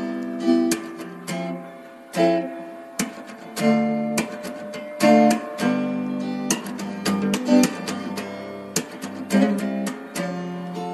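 Background music: acoustic guitar strumming and plucking chords.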